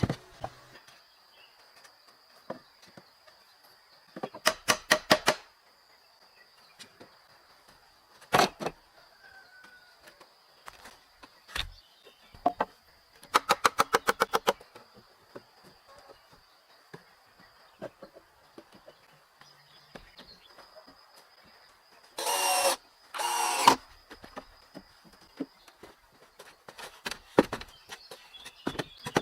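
Construction tool work: short bursts of very rapid tapping, a few single sharp knocks, and two louder rasping bursts near the end, over a faint steady high whine.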